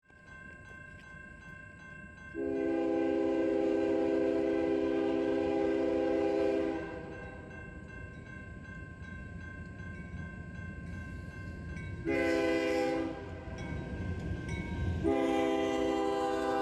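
CSX freight locomotive's multi-note air horn sounding for a grade crossing: a long blast about two seconds in, a short one about twelve seconds in, and another long blast starting about fifteen seconds in. Beneath it, the crossing signal's bell rings steadily and the rumble of the approaching train grows.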